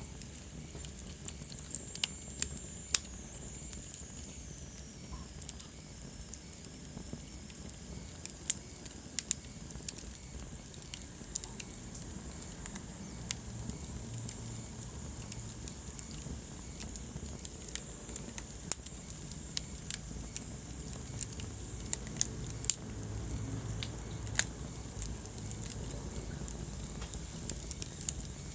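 Wood fire crackling in a fireplace: sharp pops at irregular intervals over a low, steady rumble of the flames. A faint high whistle slides down in pitch a few seconds in.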